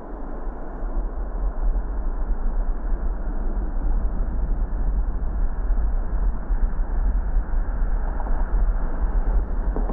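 A car driving on the road: a steady low rumble of engine and tyre noise that grows louder over the first second or two.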